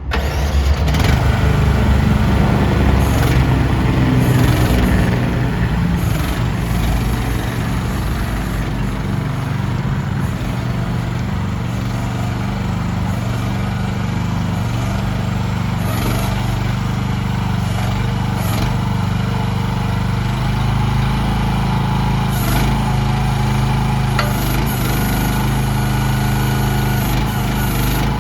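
Engine of a CFG MX15RX mini excavator running steadily, a little louder for the first few seconds.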